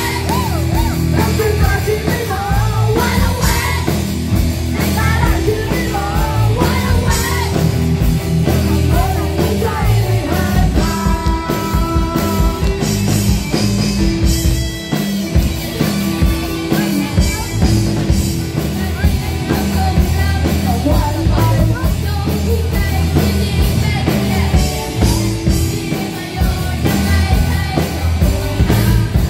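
A live rock band playing electric guitars, bass, drum kit and keyboard, with a singer's voice over the band.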